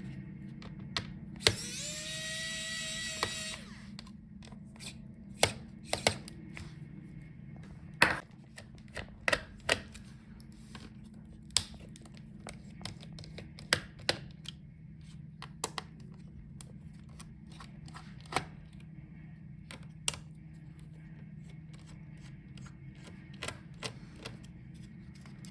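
A small electric screwdriver whirs for about two seconds, its pitch rising as it spins up, while it backs out the heatsink screws of a laptop. Then come scattered small clicks and taps of screws and tools on the laptop's chassis, over a steady low hum.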